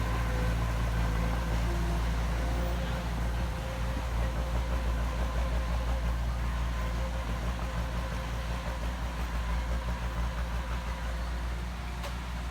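Diesel engine of heavy earthmoving machinery running steadily, a deep hum that takes on a throbbing rise and fall about four seconds in.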